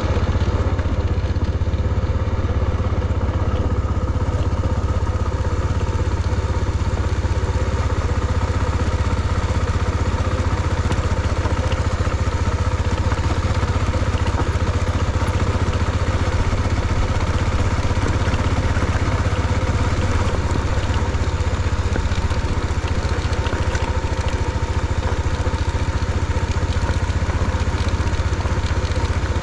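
An engine running steadily at an unchanging speed, a constant low rumble with a steady hum above it.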